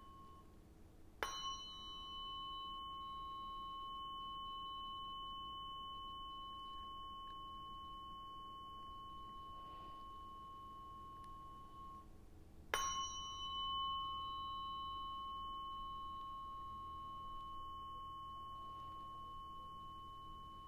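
A tuning fork, as used in Biofield Tuning sound healing, struck twice about eleven seconds apart. Each strike is a sharp tap followed by a long, steady, pure ringing tone with a faint higher overtone, slowly fading away.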